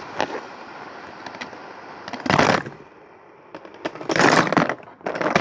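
Plastic fidget spinners clattering as they are handled and stacked: a few small clicks, then three loud, rattling bursts of clatter, each about half a second long.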